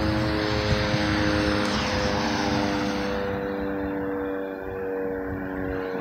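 Sentry 3V8 outdoor warning siren sounding during a test: a steady wail of several tones at once, holding its pitch and getting slowly a little quieter.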